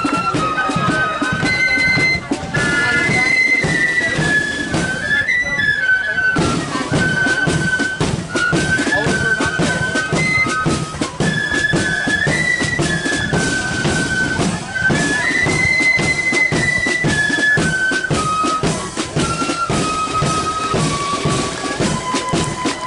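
Marching flute band playing a tune in unison on flutes, over steady bass and side drum beats.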